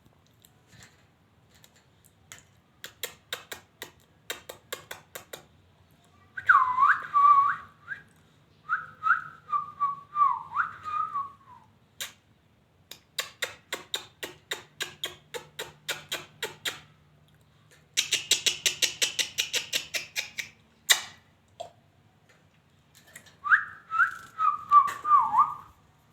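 Lovebird chirping in quick runs of sharp, high chirps, broken by short whistled notes that fall in pitch and a burst of dense buzzy chatter about two-thirds of the way in.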